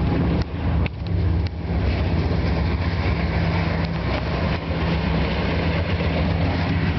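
Train rolling past on the track: a steady, loud rumble with a low hum underneath.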